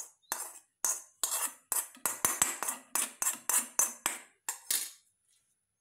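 A stainless-steel bowl knocked repeatedly against the rim of a steel mixer-grinder jar to shake out the last of the chilli powder: a quick series of ringing metal clinks, about three to four a second, stopping about five seconds in.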